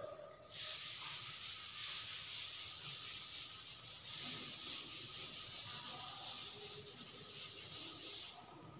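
Chalkboard duster rubbing across a blackboard, wiping off chalk writing: a steady, scratchy swishing that starts about half a second in and stops shortly before the end.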